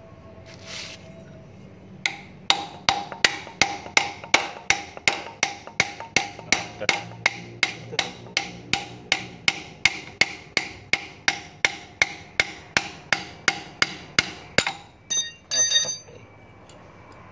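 Hammer blows on a long steel drift set against a reach truck's differential gear assembly, a steady series of about three ringing metallic strikes a second. A short ringing metal clatter follows near the end.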